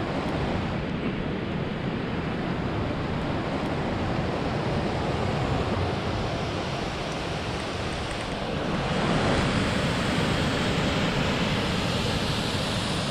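Rushing water of a mountain river and waterfall running over rocks, a steady full rush; about nine seconds in it turns brighter and a little louder.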